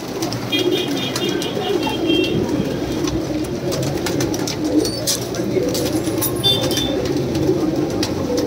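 Many domestic pigeons cooing together, a continuous overlapping low cooing, with a few brief high chirps about a second in and again past six seconds.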